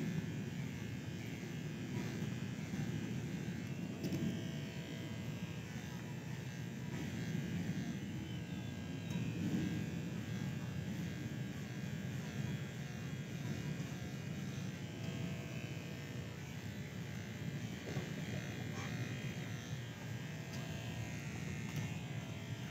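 Electric hair clippers running with a steady buzz as they cut hair.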